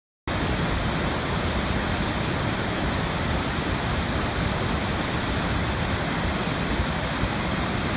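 A steady, even rushing noise that cuts in abruptly from silence just after the start and holds unchanged.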